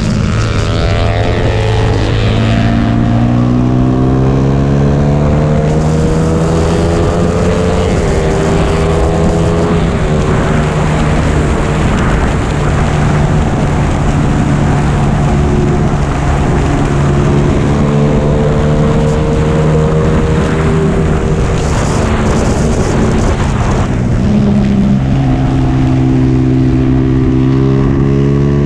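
Motorcycle engine running hard at speed, its pitch climbing as it revs and dropping back again and again through gear changes and corners.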